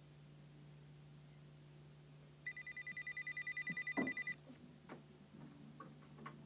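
Electronic telephone ringer trilling: one ring of about two seconds, a high tone pulsing about ten times a second. It breaks off with a clunk, followed by a few faint clicks.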